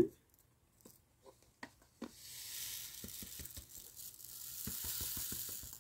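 Diamond painting drills pouring off a drill tray's spout into a small plastic jar. A few light clicks come first, then from about two seconds in a steady hissing, ticking stream of the little stones sliding in.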